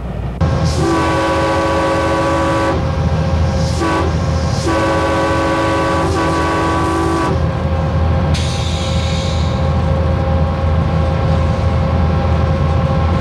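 Diesel locomotive air horn sounding a multi-note chord, heard from inside the cab of a Pennsylvania Railroad E8. It gives a long blast, a very short one, then another long blast, over the steady low drone of the locomotive running.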